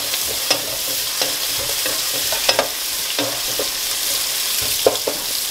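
Sliced shallots, green chillies, curry leaves and rampe leaves sizzling in hot oil in a pot as they are tempered, with a wooden spatula stirring and knocking against the pot a few times.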